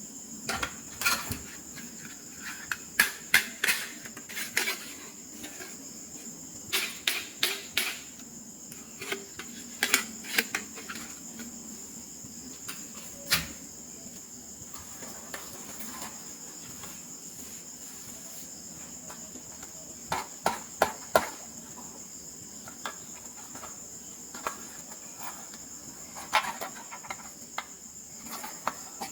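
Small plastic toy and packaging pieces clicking and tapping as they are handled, in clusters of sharp clicks with pauses between, over a steady high-pitched whine.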